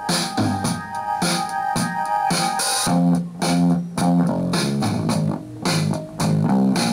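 Instrumental music with guitar and bass and a steady beat, played from a phone through a homemade TDA2003 12 V audio amplifier into a small loudspeaker as a playback test of the amplifier.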